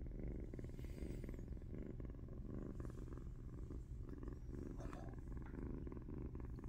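A tabby kitten about eight weeks old purring loudly and steadily, the purr rising and falling in waves.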